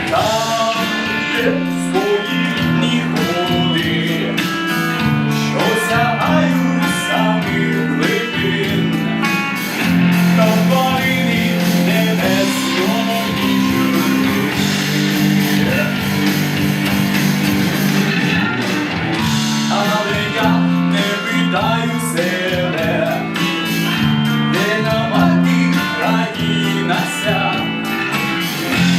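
A live band playing: guitar over steady low chords, with a bending melody line on top.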